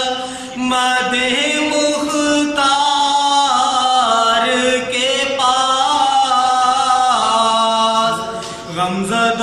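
A young man's unaccompanied solo voice chanting a naat, an Urdu devotional poem in praise of the Prophet. He holds long notes that waver and bend, with short breaks between phrases.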